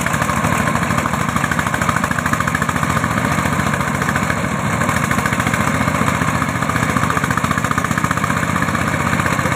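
Công nông farm truck's single-cylinder diesel engine chugging hard in a fast, steady beat, labouring under load as the cassava-laden truck is hauled out of the mud on a tow cable.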